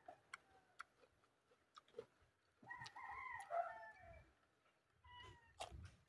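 A rooster crowing faintly: one long crow that rises and falls in pitch, starting a little under three seconds in, with a short call about a second later. A few light clicks are scattered through the otherwise quiet stretch.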